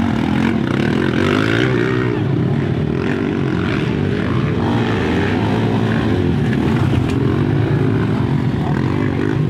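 Motocross dirt bike engines running and revving as the bikes ride past through the mud, the pitch rising and falling with the throttle.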